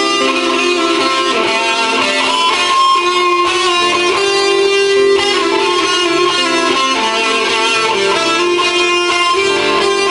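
PRS S2 electric guitar with Bare Knuckles pickups played through a PRS amp and Altec speaker, with reverb and delay. It plays a slow improvised line of held notes that ring into one another.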